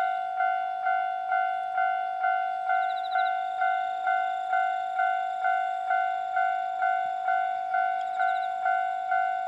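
Japanese railway level crossing warning bell ringing steadily at about two strikes a second, each ring fading before the next: the crossing's alarm, which signals that a train is approaching and the crossing is closed.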